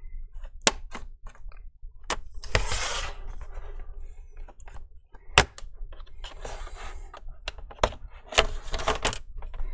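A pry tool scraping along the seam of a laptop's bottom cover, with several sharp snaps as the cover's retaining clips pop loose.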